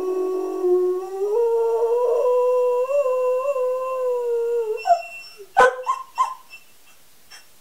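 Greyhound rooing: one long, wavering howl held near a single pitch, which steps up a little about a second in and breaks off shortly before five seconds, followed by a few short, sharp sounds.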